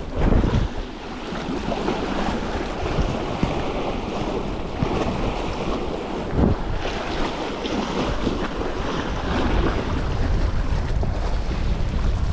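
Wind buffeting the microphone over the wash of sea waves, steady throughout, with two brief low thumps, about a third of a second in and again about six and a half seconds in.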